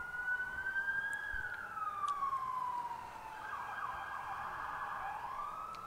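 Emergency vehicle siren wailing: a slow rise and fall in pitch, with a brief quicker warble in the middle before it rises again.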